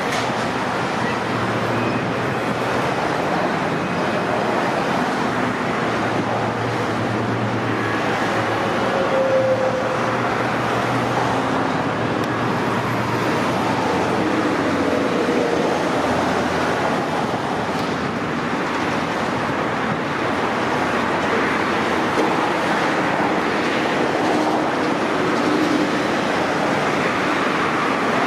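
Steady noise of freeway traffic passing close by, with a low steady hum through roughly the first half.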